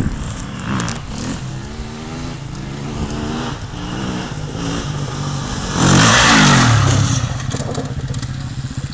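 Enduro motorcycle engine revving up and falling back again and again as the bike is ridden off-road through the gears. It is loudest about six seconds in, where the pitch climbs and drops with a rush of noise as the bike comes close.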